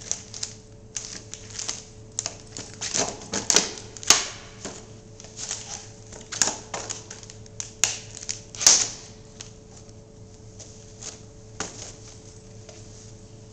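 Sneakers stamping and grinding on a flattened metal coffee can, the crushed tin crunching and crinkling in irregular sharp clicks, with the loudest crunches about four seconds in and again past the middle. A faint steady hum runs underneath.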